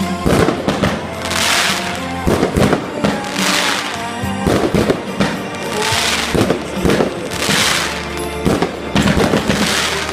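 Fireworks going off: sharp bangs and crackling, hissing bursts about every two seconds, with music playing underneath.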